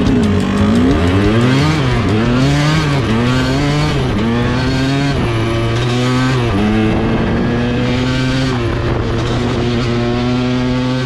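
2008 KTM 200 XCW's single-cylinder two-stroke engine under way, its pitch climbing and dropping several times as the rider rolls on and off the throttle, then running at a steady speed for the last few seconds.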